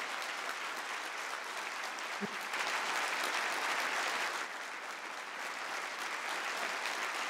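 A large seated audience applauding. The clapping grows louder about two and a half seconds in and eases off again about two seconds later.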